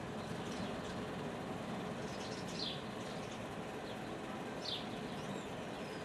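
A bird calling outdoors, a short falling chirp about every two seconds, over steady background noise.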